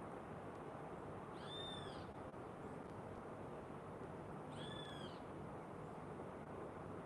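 A bird calls twice, each a short high call that rises and falls in pitch, about three seconds apart, over a steady rushing background noise.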